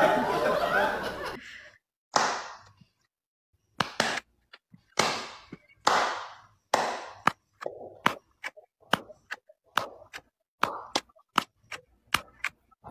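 Hand claps: a few scattered claps, then a steady run of about two to three claps a second.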